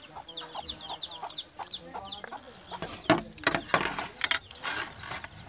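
Backyard chickens clucking and small birds chirping over a steady high insect drone. From about three seconds in there are a few sharp clicks of a fork against a plate.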